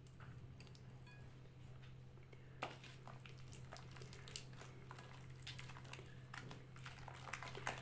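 Faint scattered clicks and soft squishes of butter going into a bowl of egg-yolk, sugar and oil mixture and being worked in, over a low steady hum.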